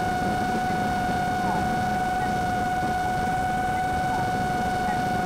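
A steady, unchanging hum with a fainter overtone above it, over an even hiss.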